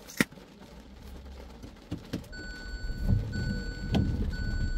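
A crisp bite into a ripe pear just after the start, followed by chewing. From about halfway a car's electronic warning chime sounds, a high tone that breaks off briefly about once a second.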